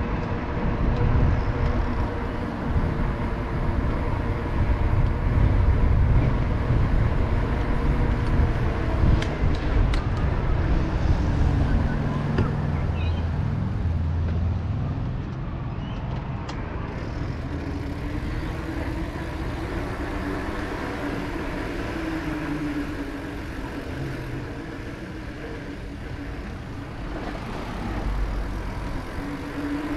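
Road traffic: motor vehicles running past with a low rumble, loudest in the first half and easing off after about 14 seconds.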